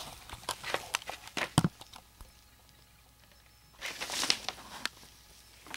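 Handling noise: a run of small knocks and clicks, then a brief rustle about four seconds in.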